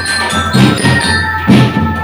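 School drum band playing: drums struck in a quick, steady rhythm under a held, bell-like melody.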